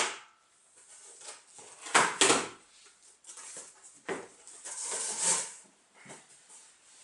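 Handling noise from unpacking: rustling and bumping of packaging in several short bursts, the longest running from about four to five and a half seconds in.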